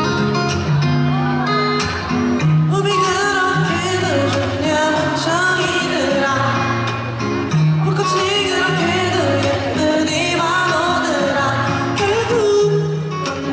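Pop music: a woman singing over guitar and a steady bass line.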